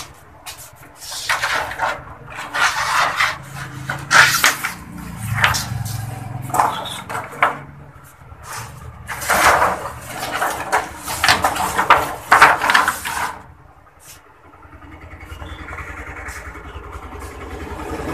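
Irregular scraping, rustling and clattering of objects being handled and moved about. After a short lull near the end, a steady low rumble comes in and slowly grows louder.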